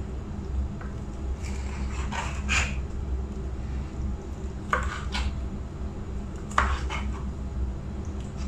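Kitchen knife cutting soft canned pineapple rings into cubes on a plastic cutting board: a few scattered knocks of the blade against the board, some in quick pairs, over a steady low hum.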